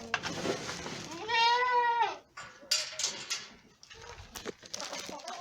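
A Boer goat bleating once, a single call of under a second, followed by a few sharp clicks and knocks.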